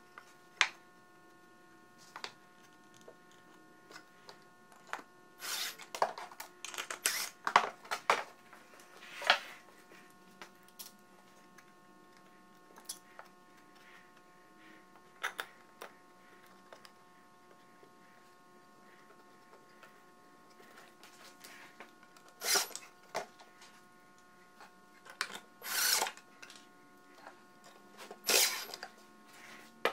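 Workbench assembly sounds: scattered knocks and clicks of wooden parts and a bar clamp being handled, with several short bursts of a cordless impact driver driving pocket-hole screws, the loudest near the middle and toward the end. A faint steady hum runs underneath.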